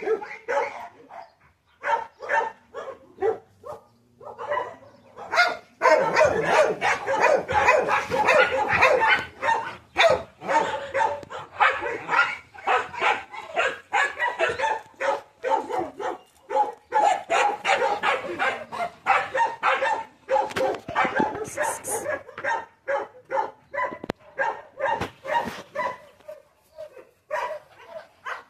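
Dog barking over and over in short, quick barks, sparse at first, then a dense, nearly continuous run of barking through the middle, thinning out again near the end.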